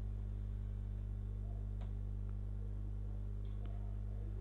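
Steady low electrical hum with a stack of overtones, mains hum picked up in the recording, with a few faint clicks scattered through it.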